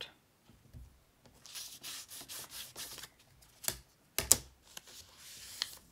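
Paper foundation template being folded back over a plastic quilting ruler and creased: a quick run of dry rubbing strokes, then two sharp clacks of the ruler being handled about four seconds in, followed by another short rub of paper.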